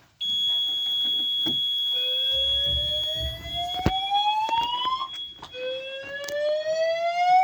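A fire alarm panel's buzzer sounds a steady high tone as the evacuation starts. About two seconds in, the voice sounders begin a Dutch slow whoop: two slow rising sweeps of about three seconds each. A single sharp click comes between the sweeps.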